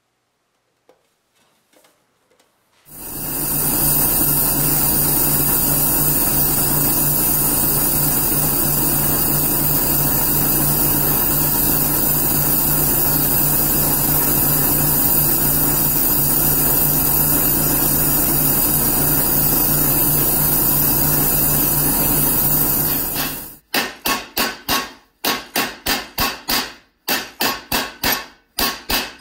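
An oxy-fuel torch flame runs with a steady, loud hiss and a low hum while it heats the seam of a copper lamp shade. It cuts off abruptly, and a mallet then strikes copper sheet over a pipe stake in a vise in a quick regular series of blows, about two or three a second.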